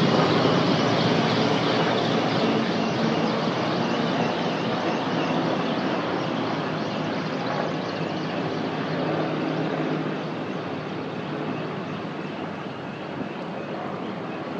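A formation of helicopters flying overhead, a steady rotor-and-engine drone that slowly fades as they move away.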